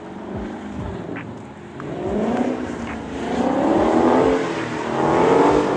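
Car engine revving up and down in repeated swells as the car spins donuts in snow, loudest near the end.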